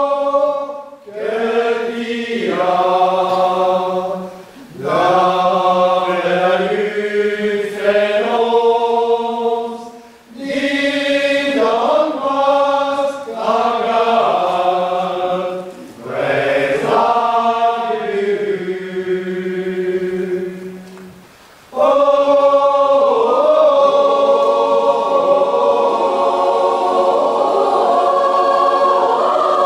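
Large mixed choir of men's and women's voices singing in phrases of a few seconds, each separated by a short break for breath. About three-quarters of the way through, a louder, longer phrase begins and is held.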